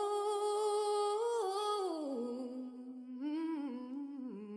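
A solo voice singing a long, wordless 'ooh': it holds a high note, slides down about halfway through, then wavers and steps down again on lower notes near the end.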